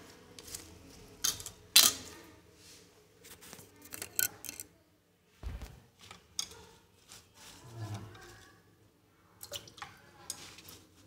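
Kitchen utensils and a knife handled at a sink: scattered clinks, taps and knocks, the loudest about two seconds in, with a dull thump midway.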